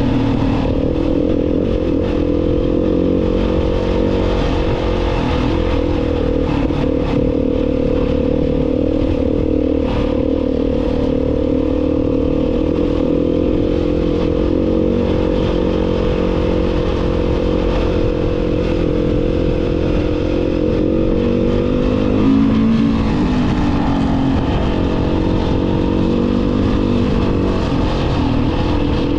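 A vehicle engine running steadily under a constant low rumble. About two-thirds of the way through, its note dips briefly and climbs back.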